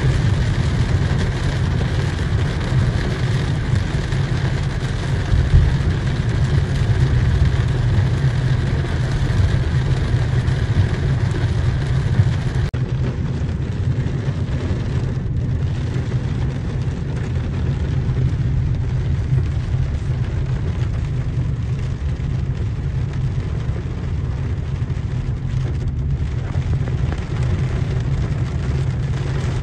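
Steady cabin noise inside a car driving in heavy rain: a low rumble of engine and road under rain falling on the windshield and body.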